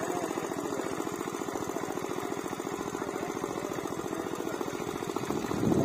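A small engine running steadily with a fast, even chug, swelling briefly louder near the end.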